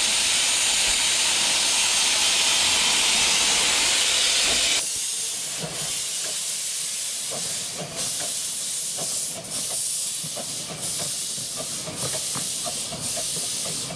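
A 15-inch-gauge 4-6-2 steam locomotive hissing steadily with steam up. About five seconds in the hiss drops to a quieter level, with short sharp beats about once a second as the locomotive moves off.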